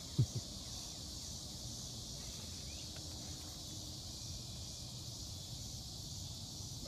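Steady chorus of insects, a constant high hiss, over a low rumble, with two short low sounds just after the start.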